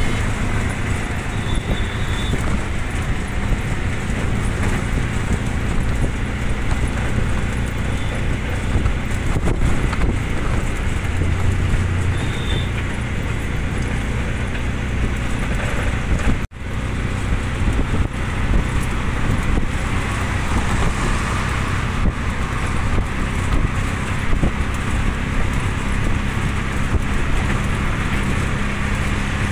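Auto-rickshaw's engine running steadily with road and wind noise, heard from inside the open cabin while it drives. The sound cuts out for a moment about halfway through.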